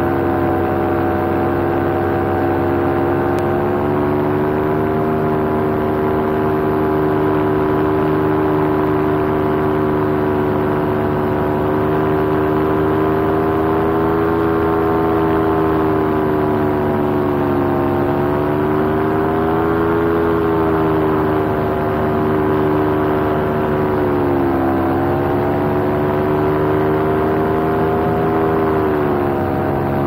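Paramotor engine and propeller running steadily in flight, heard from the pilot's seat. Its note falls and rises again a few times in the second half as the throttle changes.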